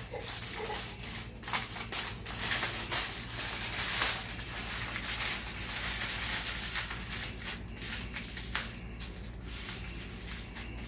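Aluminium foil crinkling and crackling in an irregular run as hands fold and crush it tightly around a food parcel.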